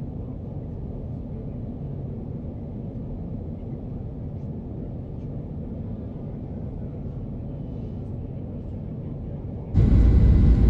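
Steady low rumble of a Boeing 737 cabin in flight on approach. Near the end the noise jumps abruptly louder and fuller.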